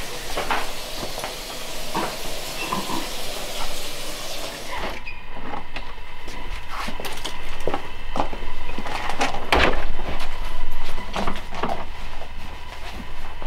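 Kitchen tap water running with a steady hiss; about five seconds in it cuts off and a front door is handled, with clicks of its latch and handle and several knocks.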